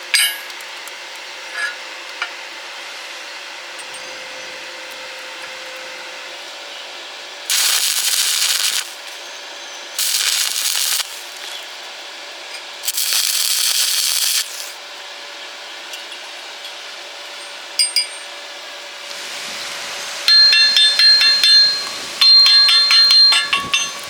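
Arc welding crackle and hiss in three short bursts of one to two seconds each, over a steady background hiss. Near the end comes a quick run of sharp metallic clicks with ringing tones.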